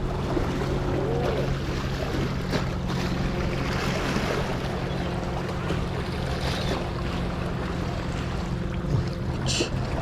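A steady low engine hum over wind and water noise, with a short high squeak near the end.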